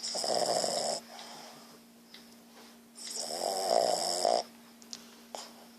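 Dog snoring loudly, two snores about three seconds apart, each about a second long, over a faint steady hum.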